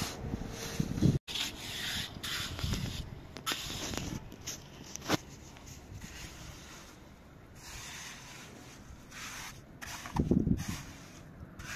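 Hand trowel scraping and spreading wet mortar over a floor in repeated strokes, with a few sharp clicks and some louder thumps near the end.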